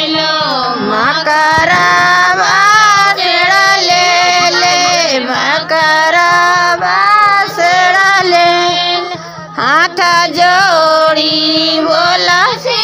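A high female voice singing a Bhojpuri Chhath devotional song in long, drawn-out notes with a wavering pitch, over a steady low hum.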